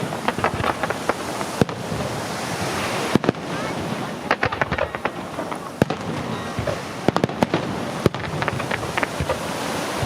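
Fireworks display going off: sharp bangs and crackles coming in quick clusters, over a continuous rumbling haze.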